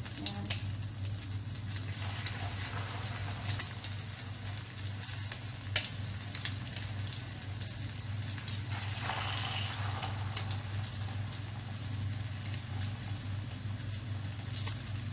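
Bread rolls with banana filling sizzling in shallow oil in a frying pan, a steady hiss with scattered crackles and pops. The sizzle swells briefly about nine seconds in as more rolls go into the hot oil.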